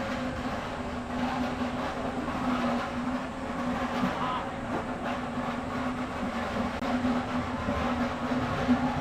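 A vehicle running steadily: a constant low hum over a rumbling noise.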